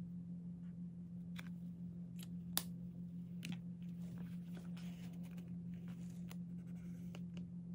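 Pens and a paper notebook handled on a desk: a few sharp clicks and taps, the loudest about two and a half seconds in, and a soft rustle of paper around the middle, over a steady low hum.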